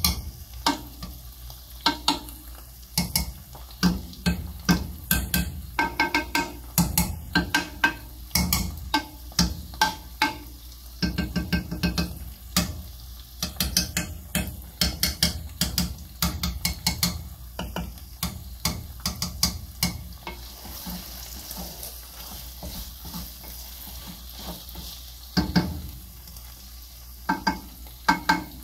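Wooden spoon stirring ground meat frying in a metal pot, scraping and knocking against the pot over a steady sizzle. The stirring stops for a few seconds past the middle, leaving only the sizzle, then starts again near the end.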